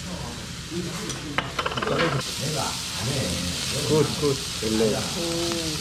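Samgyeopsal pork belly and garlic sizzling on a tabletop grill. A brief clatter comes about a second and a half in, and then the sizzle sets in strongly.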